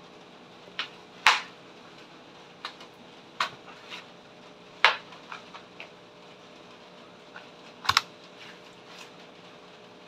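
Irregular clicks and taps of computer keyboard keys, about a dozen, loudest about a second in, near the middle, and a close pair near the end, over a faint steady hum.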